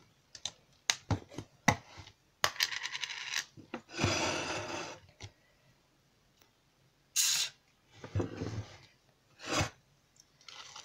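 Plastic lid of a tub of Riviera decorative plaster being prised open with a run of sharp clicks and a longer rustle, then a metal palette knife scraping and stirring the thick plaster in the tub in a few short strokes.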